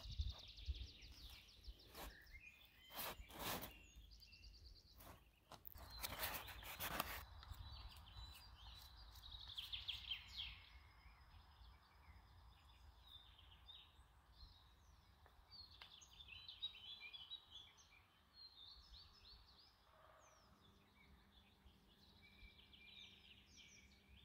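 Small birds singing and chirping in the background. Over the first several seconds come sharp crackling rustles of stiff birch bark being handled, and a faint low steady hum comes in near the end.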